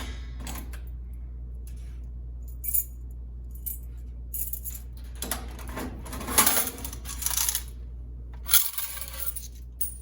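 Coins, laundromat quarters, clinking and sliding against each other as they are handled. The jingling comes in bursts, the largest in the middle and another near the end, over a steady low hum.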